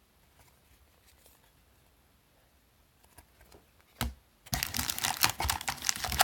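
A few faint clicks, then a single knock about four seconds in, followed by the dense crinkling and tearing of a trading card pack wrapper being ripped open.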